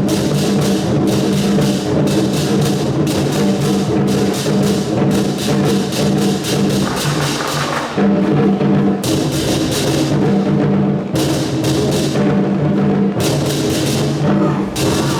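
Procession music, loud and continuous: drums and cymbals struck in quick succession over a steady sustained tone, with the cymbal strikes dropping out briefly a few times.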